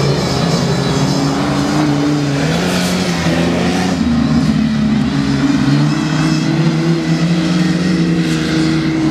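Engines of off-road 4x4 race vehicles running and revving, more than one at a time, their pitches rising and falling as they accelerate and ease off.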